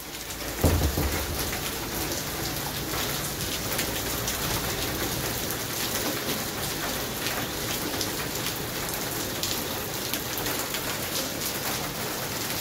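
Torrential rain pouring down on wet pavement, puddles and a parked car: a steady hiss of falling water dotted with sharp drop ticks. A brief low thump about half a second in is the loudest moment.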